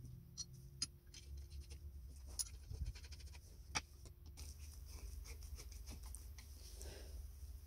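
Light scattered clicks and taps of cast-iron bone-grinder parts being handled and fitted together as the comb plate goes on over the cutting roller, with a few sharper clicks in the first four seconds. A steady low hum runs underneath.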